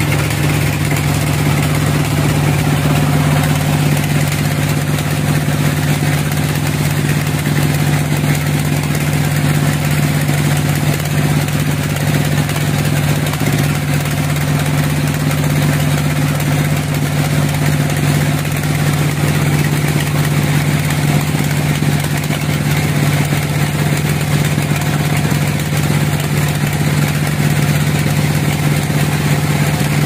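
Large band sawmill's machinery running with a steady low hum, unchanging throughout.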